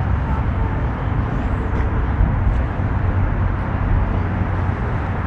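Steady rumble of road traffic with cars passing, mostly low-pitched and even, with no sharp events.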